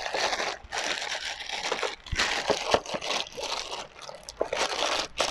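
Clear plastic bag crinkling in irregular bursts as an airsoft pistol is pushed into it and handled, with a few short knocks.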